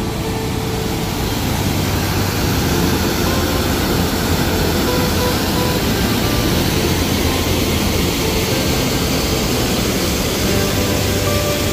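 Water pouring over a concrete spillway weir into the pool below, a steady, loud rush of falling water.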